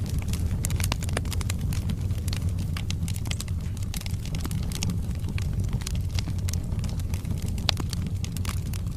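Wood fire in a fireplace crackling steadily over a low rumble of the flames, with many small snaps and a sharper pop near the end.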